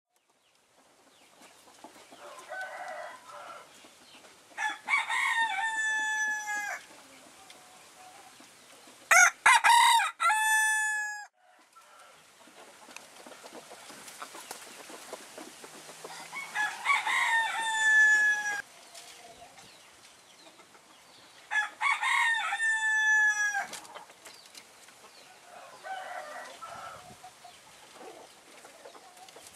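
Roosters crowing: four long crows, the loudest about nine seconds in, with fainter, shorter calls between them.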